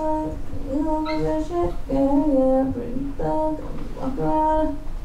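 A woman singing a wordless melody in a string of held notes with short slides between them.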